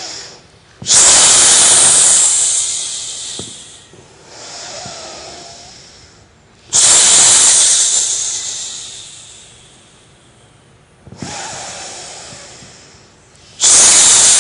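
Slow, deep breathing heard close to a microphone during a qigong breathing exercise: three loud breaths that start suddenly and fade away over two to three seconds each, about six seconds apart, with softer breaths between them.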